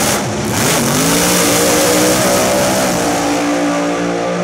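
Supercharged drag car launching from the start line and accelerating hard down the strip at full throttle. Its engine climbs in pitch about a second in, then holds high.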